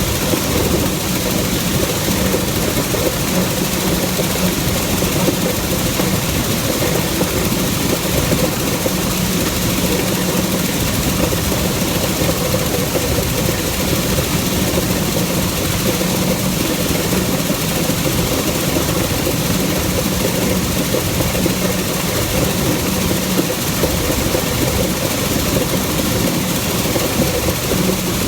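Combine harvester running steadily under load while cutting wheat: a continuous engine and machinery drone with a steady low hum.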